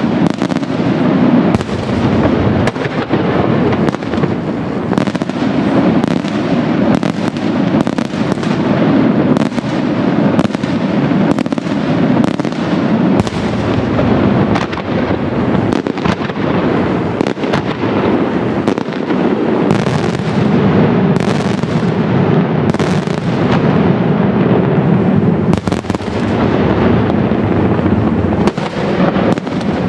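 Daytime fireworks: salute shells bursting into many small reports, a dense, unbroken barrage of overlapping bangs and cracks.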